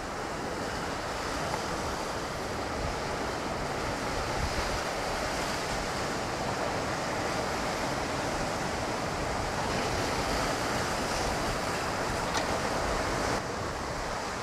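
Ocean surf washing steadily on the shore, swelling slightly, with a sudden drop in level near the end.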